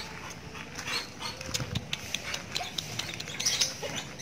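Hunting dog on a leash moving about on concrete: scattered short clicks and scuffs.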